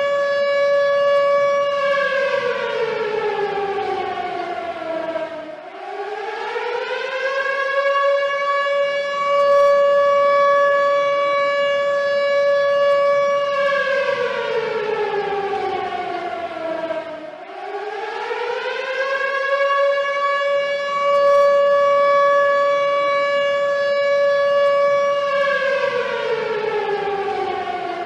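Warning siren sounding a slow wail: a steady tone held for several seconds, then sliding down in pitch and rising back to hold again, about one full cycle every eleven to twelve seconds. It falls three times, the last near the end.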